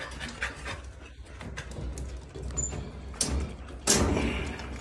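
Knocks and rattles of a wire dog crate with a plastic slatted floor as an American Bully climbs in and moves about, the loudest clatter about four seconds in.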